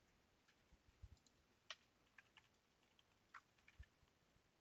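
Faint computer keyboard typing: a few scattered, irregular keystrokes over near silence.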